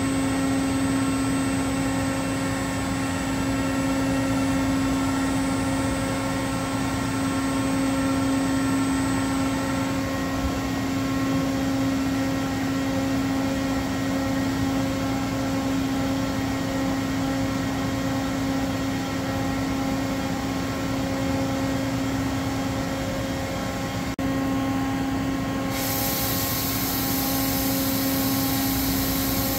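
Doosan DCM 2740 CNC bridge mill running with a steady machine hum: a fixed low tone with higher whines over it while the spindle head moves. A high hiss comes in near the end and cuts off just before the end.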